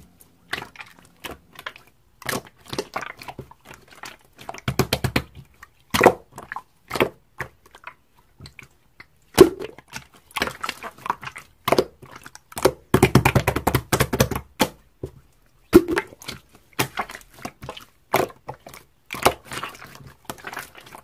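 Clear slime being stretched, folded and squished by hand, giving irregular wet clicks and pops, with denser squelching crackles about five seconds in and again around thirteen to fourteen seconds.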